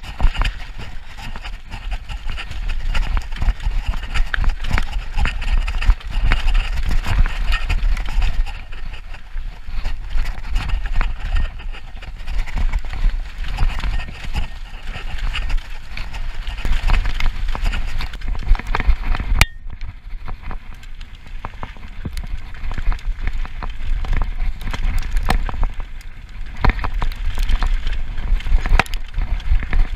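Downhill mountain bike ridden fast down a dirt trail, heard from a camera on the bike: steady wind buffeting over the microphone, tyres rolling over dirt and roots, and constant rattling and knocking of the chain and frame over bumps. A sharp click comes about two-thirds of the way through, after which the sound is duller.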